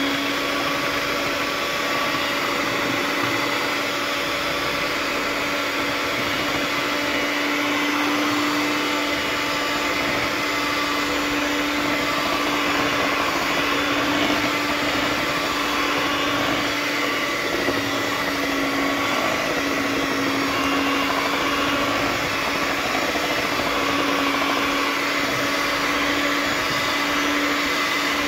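Electric hand mixer running steadily at one constant pitch, its beaters whisking cake batter in a stainless steel bowl.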